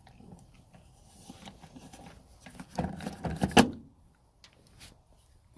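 Plastic trim clip being worked loose from a plastic cowl panel by hand: scattered small clicks and rubbing, with a cluster of louder knocks and a sharp click about three and a half seconds in.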